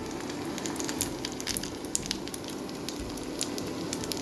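Dumplings frying in hot oil in a pan: a steady sizzle with frequent, irregular sharp pops and crackles.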